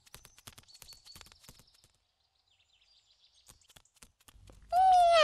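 Quick, light tapping steps from the cartoon's sound effects, stopping about two seconds in. Near the end a cat starts one long, loud meow, falling slowly in pitch.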